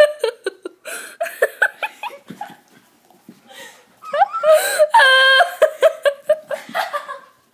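A young girl laughing and giggling in bursts, with a held high squeal about five seconds in.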